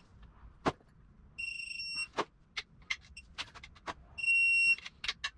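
Digital torque angle wrench beeping twice, each a steady high beep about half a second long, as each main cap bolt reaches its 51-degree angle, with sharp clicks from the wrench between the beeps.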